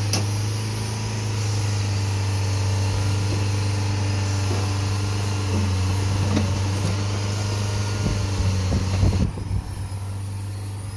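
Komatsu PC40 mini excavator's diesel engine running steadily as the boom, arm and tracks are worked, with several irregular clanks about eight to nine seconds in.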